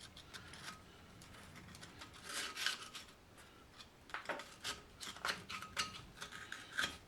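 A hand tool scraping dried clay mud off a 700R4 automatic transmission's oil pan, in faint, irregular bursts of short scratchy strokes.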